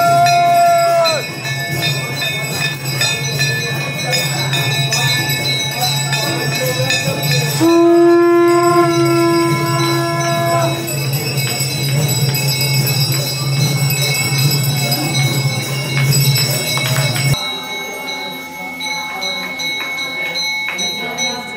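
Bells ringing continuously over a crowd's voices. A long held note sounds at the start and another about eight seconds in. A low steady hum cuts off abruptly about seventeen seconds in.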